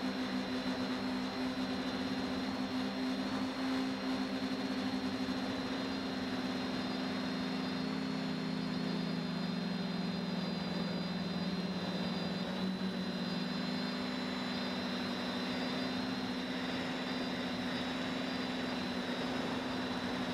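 A quadcopter's electric motors and propellers humming steadily, heard from the camera on the aircraft, with a high whine above the hum. The hum's pitch dips slightly about eight seconds in and comes back up about four seconds later.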